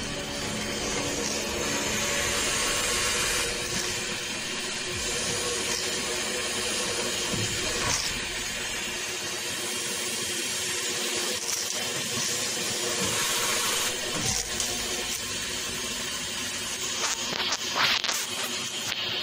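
Vacuum cleaner running, its hose sucking up dust and dirt inside an air duct: a steady rushing hiss, with a few short sharp sounds near the end.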